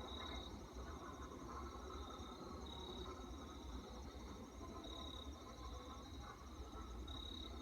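Crickets chirping in a steady, pulsing high trill, with short louder chirps every second or two, over a steady low rumble.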